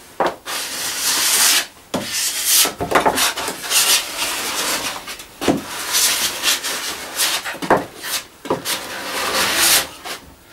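Wide filler knife scraping two-part body filler across a plywood cabinet top. It goes in repeated strokes of a second or two each, with brief pauses between them.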